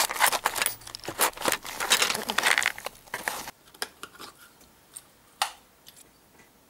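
Paper receipts crinkling and coins clinking as a hand rummages through a car's center-console tray, dense and crackly for about three and a half seconds. Then a few scattered clicks, one sharper than the rest about five seconds in.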